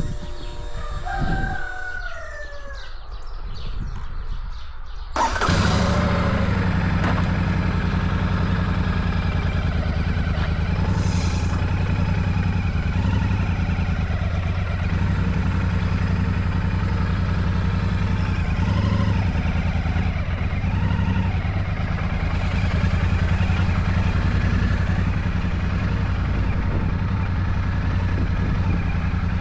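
A rooster crows briefly. Then, about five seconds in, a Royal Enfield Shotgun 650's 648 cc parallel-twin engine comes in suddenly and runs steadily.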